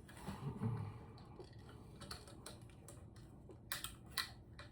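A handful of light, irregular clicks and taps of hands working a small part loose on a wooden biwa, most of them in the second half.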